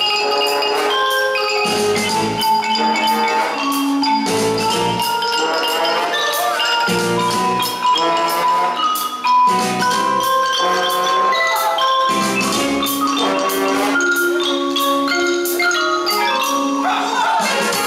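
A large marimba with resonator tubes, played with mallets by four players at once in quick melodic runs, over backing music with long held notes.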